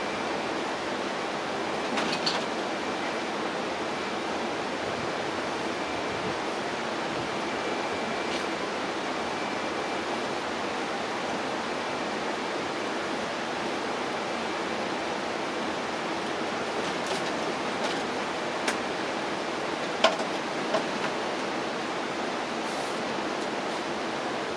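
Steady, even rushing noise with a few faint, sharp clicks scattered through it.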